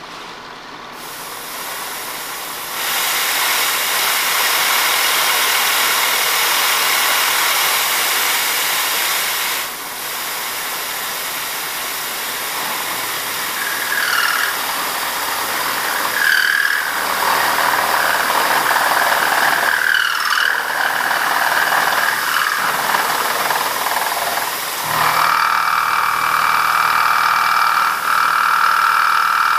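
End mill on a vertical milling machine taking a roughing cut across a small steel part, over a steady loud hiss from the spray nozzle aimed at the cutter. Short squeals come and go about halfway through, and a steady high-pitched squeal sets in a few seconds before the end.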